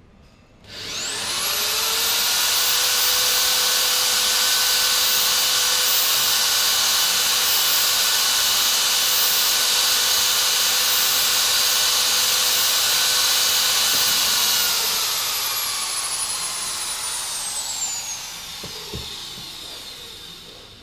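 Electric drill with a water-fed diamond core bit drilling wall tile. It spins up to a steady high-pitched whine about a second in, then winds down with falling pitch after about fifteen seconds.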